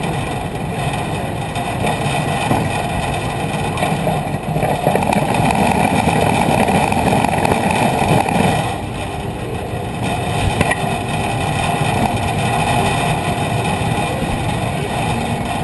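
A robot's drive running steadily as it rolls across pavement, heard up close from a camera mounted on it. It is a continuous mechanical noise with a faint steady whine, louder from about four to eight and a half seconds in.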